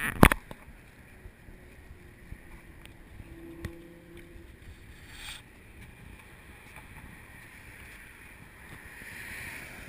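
Steady outdoor rumble of wind on a GoPro's microphone, with a couple of loud knocks at the very start and a few faint clicks after.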